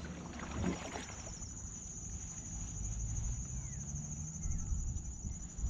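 Outdoor ambience: a steady high-pitched hum over a low rumble, with a few faint short chirps.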